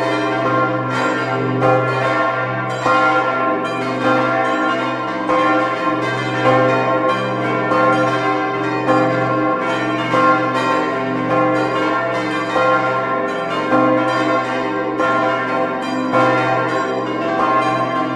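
A full peal of several church bells swinging and ringing together. Their strikes overlap about once or twice a second over a steady low hum.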